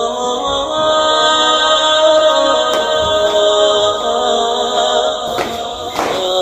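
Background vocal music: a cappella singing with long held notes, with a couple of brief knocks near the end.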